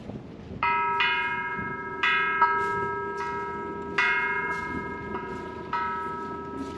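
Large hanging metal temple bell struck with a wooden striker about four times, every couple of seconds. Each stroke rings on with a low hum under several higher tones, fading slowly into the next strike.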